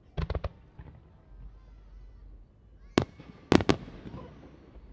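Aerial firework shells bursting: a quick cluster of about four bangs at the start, then a single bang about three seconds in and two more close together just after it, each followed by an echoing rumble.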